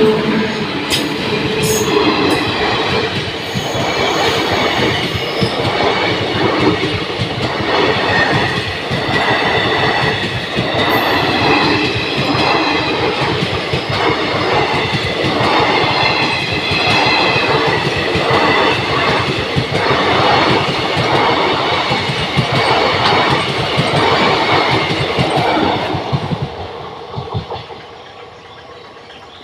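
Coaches of the 13033 Howrah–Katihar Express rushing past at speed: a loud rail rumble with a rhythmic clickety-clack of wheels over the rail joints, beating about once a second. It drops away near the end as the last coaches go by.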